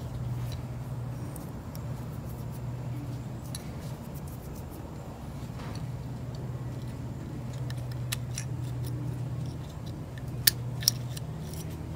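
Small metallic clicks and scrapes of a hand tool working in the aluminium body of a 1950 Johnson TN-26 outboard carburetor, prying the float's holding pin free. There are two sharper clicks near the end, over a steady low hum.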